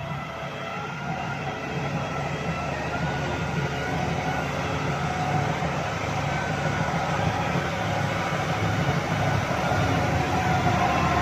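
Concrete pump running under load: a steady machine drone that slowly grows louder.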